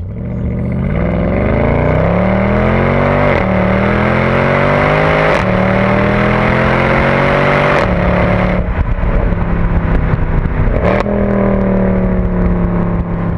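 A vehicle engine accelerating hard through several gears: its pitch climbs, falls at each gear change about four times, then holds steady near the end.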